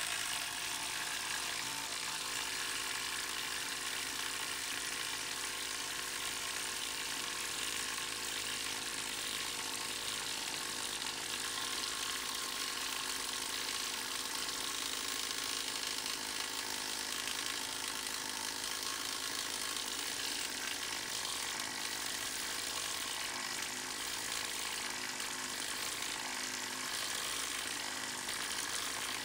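Cordless impact wrenches (Ryobi, Hyper Tough 20 V brushless and JSD Hope) hammering as they drive long lag screws into wood, a steady dense rattle of impacts played back at four times speed.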